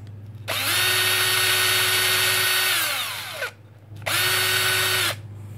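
Small electric power drill running in two spells: a run of about three seconds whose whine falls as it winds down, then a shorter run of about a second that stops abruptly, taking screws off the old differential gear.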